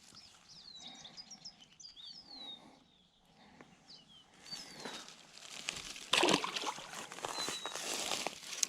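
Small birds chirping and twittering in quick, high notes for the first few seconds. After that comes a stretch of rustling and clicking handling noise, loudest about six seconds in.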